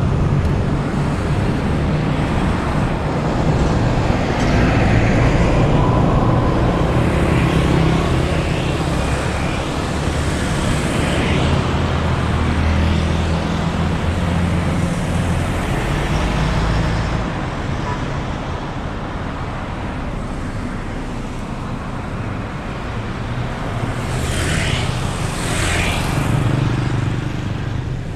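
Busy road traffic, with cars and motorcycles passing in a steady stream. A continuous rumble of engines and tyres swells and eases as vehicles come and go, and a brief higher hiss from a close-passing vehicle comes near the end.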